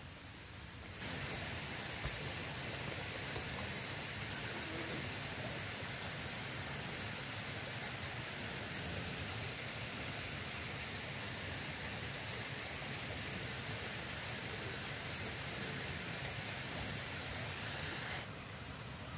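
Insects in the surrounding forest droning steadily on one high-pitched note over a soft hiss, starting abruptly about a second in and cutting off near the end.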